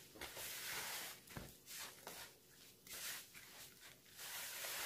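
Faint scraping and rustling of a hand and spatula working crumbly flour-and-water dough in a plastic bowl, with one soft knock about a second and a half in.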